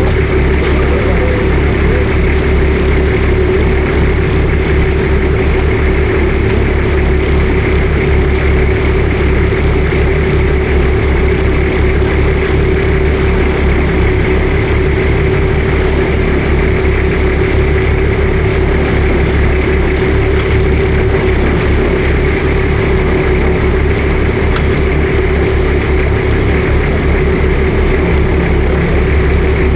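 Fishing boat's engine running steadily: a loud, even low rumble with a steady hum over it.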